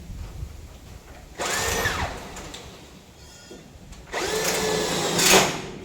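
Power drill run in two bursts of about a second each, its motor whine rising as it spins up and falling as it stops, as when driving screws.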